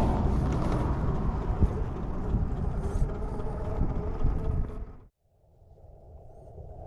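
RC rock crawler's electric motor and geartrain running and whining as it drives over rough ground, with a heavy rumble. The sound cuts off abruptly about five seconds in and comes back quieter and steadier.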